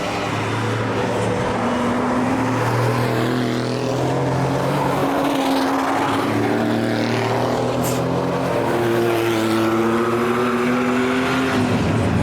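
Race cars passing one after another at full throttle, their engine notes overlapping, each climbing in pitch and stepping through gear changes.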